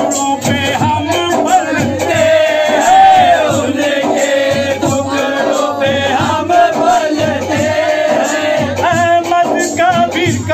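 Men singing a devotional chant: a lead male voice through a handheld microphone, with other men joining in.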